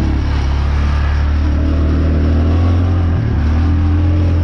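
Four-wheeler (ATV) engine running as it is ridden, with wind buffeting the microphone. The engine note dips briefly about three seconds in, then rises again.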